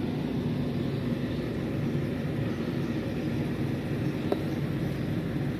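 A steady low mechanical hum of a motor running, unchanging throughout, with one faint click about four seconds in.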